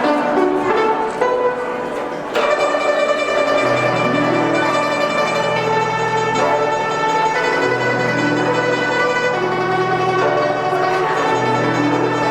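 Chinese traditional orchestra playing: plucked strings over sustained melodic notes. There is one sharp hit about two seconds in, and a low held bass line enters soon after.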